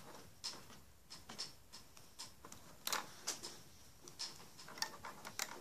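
Loom rubber bands being stretched and slipped onto the clear plastic pegs of a bracelet loom, giving small irregular clicks and taps, about two a second.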